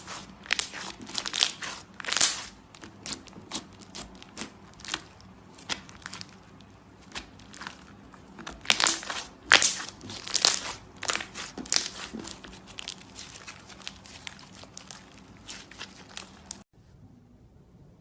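Slime being squeezed and worked by hand, making a run of irregular crackling clicks and pops that cut off suddenly near the end.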